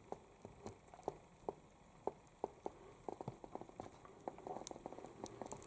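Model railway train rolling slowly on the track, its wheels clicking irregularly over the rail joints, with a faint steady hum underneath.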